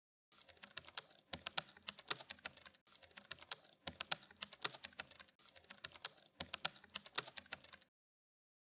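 Rapid, fairly quiet clicks in quick runs with short pauses, like typing on a keyboard, starting about half a second in and stopping about a second before the end.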